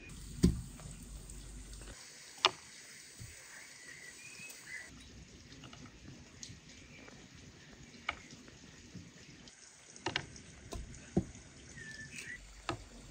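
Apricot pits dropped one by one onto a wooden tray, each landing with a sharp tap, about six taps spread irregularly. Faint bird chirps in the background.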